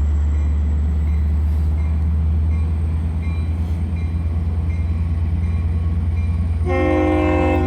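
Locomotive 504 running with a steady low rumble, then sounding a short horn blast of several chord tones together about seven seconds in, lasting about a second.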